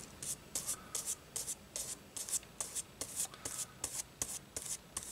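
A small applicator brush scrubbing contact cement onto a strip of wood veneer in short, quick strokes, about four a second: a faint, scratchy brushing.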